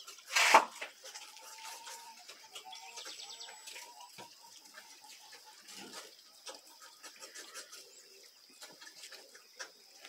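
Pigs grunting at their feed, with one loud short sound about half a second in and many small clicks through the rest.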